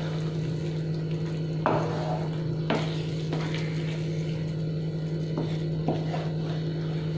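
A black spatula stirring a thick bottle-gourd and gram-flour mixture in a kadhai, with several short scrapes against the pan. A steady low hum runs underneath.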